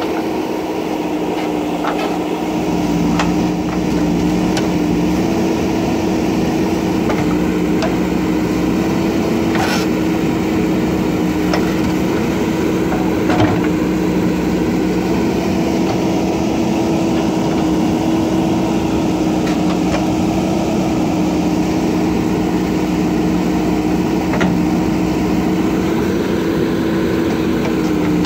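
JCB backhoe loader's diesel engine running steadily under work, with a few sharp metallic knocks scattered through, the loudest about 13 seconds in.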